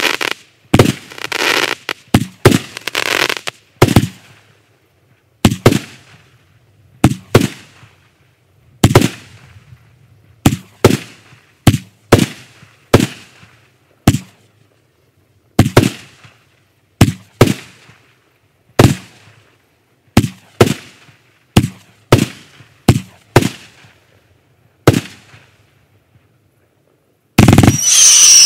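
Kimbolton Fireworks 'Blockbuster' single-ignition firework cake firing: a string of sharp bangs roughly a second apart, each a shot bursting in the air, with crackling in the first few seconds. After a short lull near the end, a loud hissing launch with a whistle falling in pitch starts the next shots.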